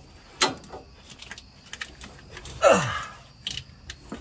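Hand ratchet turning a cylinder-head bolt on a Chevy V8: scattered metallic clicks and clanks. About two and a half seconds in there is a short, louder sound that slides down in pitch.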